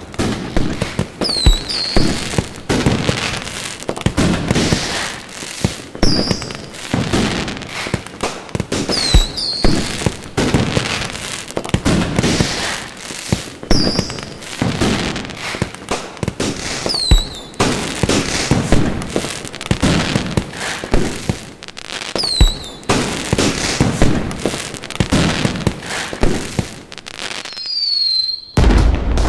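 Aerial fireworks display going off continuously: a rapid run of booms and bangs about every half second to second over steady crackling, with short high whistles now and then.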